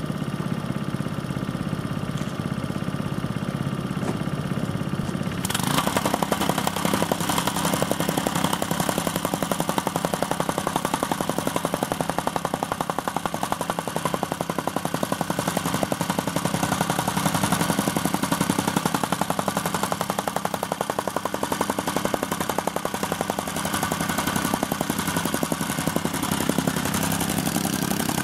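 Tamping rammer with a Honda GX100 four-stroke single-cylinder engine running. About five seconds in it picks up and settles into a fast, steady pounding of the rammer's foot on gravel over the engine note.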